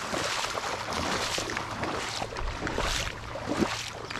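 Continuous splashing and sloshing of someone moving through shallow pond water.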